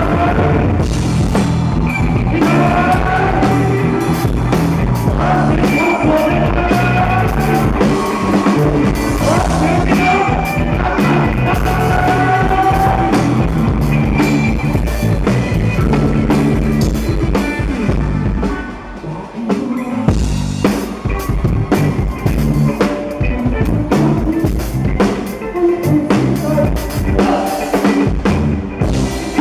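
Live rock band heard from right beside the drum kit, the drums loud and close, with a sung melody over the band for roughly the first half. After about 18 s the singing has dropped out and the music thins and dips, the drums carrying on with the band.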